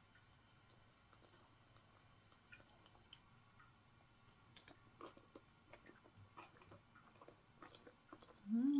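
Soft, faint chewing of a soft bread pastry with small wet mouth clicks. Near the end, a short, louder hum of enjoyment that rises in pitch, like a closed-mouth "mmm".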